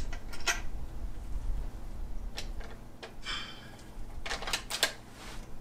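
Scattered small clicks and rattles of a scoped bolt-action rifle being handled and readied at a shooting bench, with a cluster of clicks near the end, over a low steady wind rumble on the microphone. No shot is fired.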